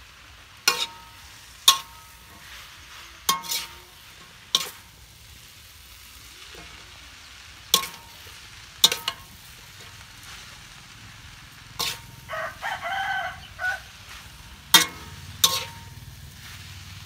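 Noodles and greens being stir-fried in a large aluminium wok: a metal spatula clanks and scrapes against the wok about nine times, each strike ringing briefly, over a low sizzle. A drawn-out crowing call comes in about twelve seconds in.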